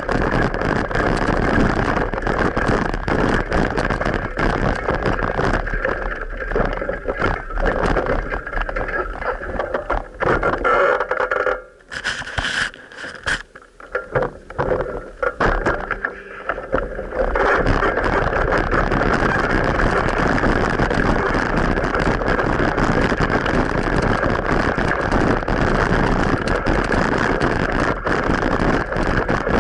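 Steady rushing noise of a moving bicycle ride picked up by an action camera: wind on the microphone mixed with road and traffic noise. It drops and breaks up for a few seconds about halfway through, then comes back as strong as before.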